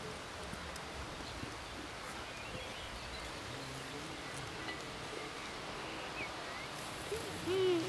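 Steady open-air background hiss of a rural meadow, with faint, scattered bird chirps. About seven seconds in comes a brief, louder pitched vocal sound.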